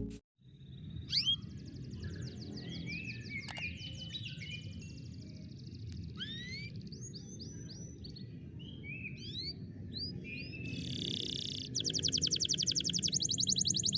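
Canary singing: runs of fast trills and rising chirps, with a louder, faster trill starting near the end, over a low steady background rumble.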